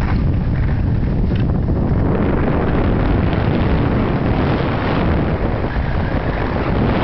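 Wind rushing over the camera's microphone as a skier moves down the piste, a loud, steady noise with no distinct events.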